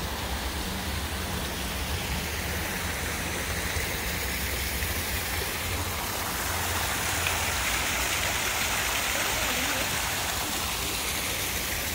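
Steady splashing of running water from a water feature in a garden.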